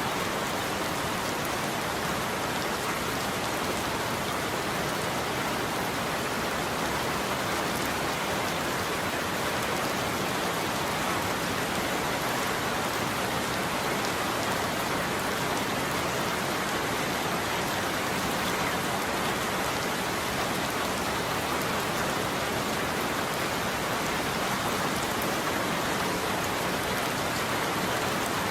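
Steady heavy rain falling on a surface, an even hiss of drops with no thunder.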